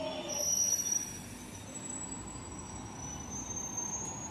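London Underground 1996 stock train slowing into the platform: its motor whine falls in pitch and fades about a second in, leaving a steady rumble with high, thin squeals.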